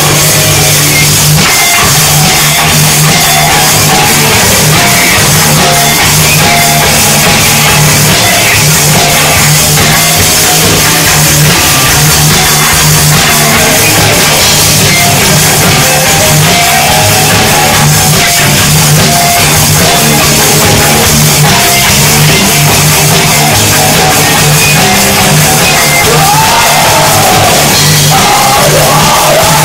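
Live punk-metal band playing loud: electric guitar, bass guitar and drums, with shouted vocals coming in near the end.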